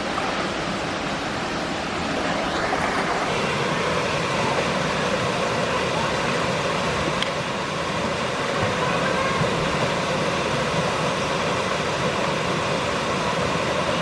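Steady rush of a small waterfall cascading down a rock face into a pool, an even hiss of falling water that grows a little louder about two seconds in.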